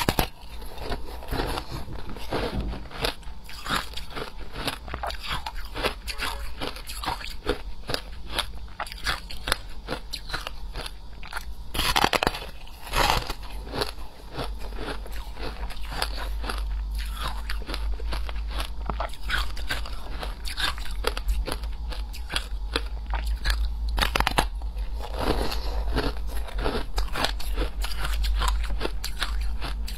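Close-up crunching as a person bites into and chews frozen blocks of compressed shaved ice, a dense run of crackling crunches. Louder bites come at the start, about twelve seconds in, and again about twenty-five seconds in.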